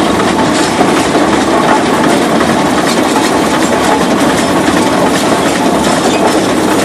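Rumely steam traction engine running, with a loud, steady mechanical noise from its engine and motion work.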